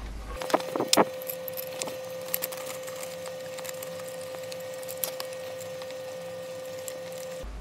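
Metallic clinks and taps of aluminium frame extrusions and socket head cap screws being handled and fitted. A few sharp clicks come about half a second to a second in, then lighter scattered ticks, over a faint steady hum.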